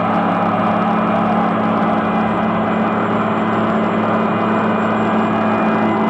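Diesel engine of heavy road-building equipment running at a steady speed: an even, unchanging drone with a strong low hum.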